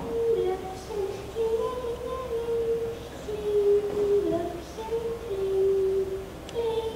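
A young girl singing a slow melody solo and unaccompanied, holding long notes that step up and down.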